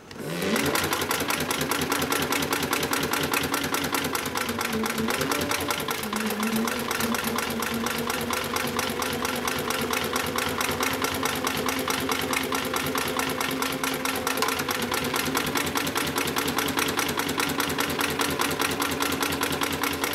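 HIGHTEX 7273BV extra-heavy-duty walking-foot sewing machine, with a large barrel shuttle hook, sewing through a multi-ply polyester lifting sling. It starts up with a rising motor hum, then runs at a steady speed with rapid, even clattering needle strokes, the hum shifting pitch slightly a few seconds in.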